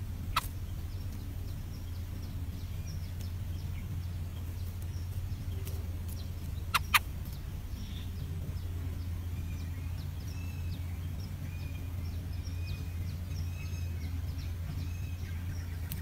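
Faint, short bird chirps over a steady low hum. The chirps come thick and fast from about halfway on. A sharp click sounds near the start, and two more close together about seven seconds in.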